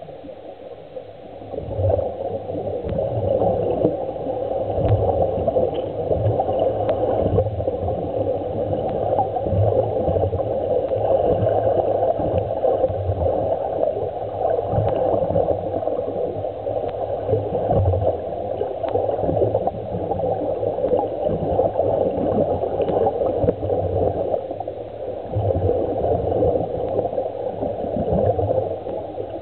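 Air bubbling underwater from surface-fed dive helmets and a scuba diver's regulator: a steady gurgling rush with uneven low throbs, growing louder about two seconds in.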